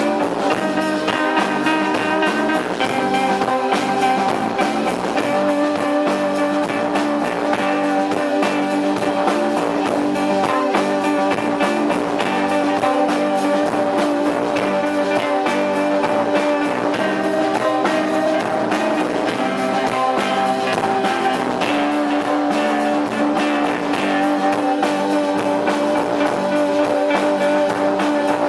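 Live post-punk band playing an instrumental intro, with guitar to the fore: held chords over a fast, even pulse.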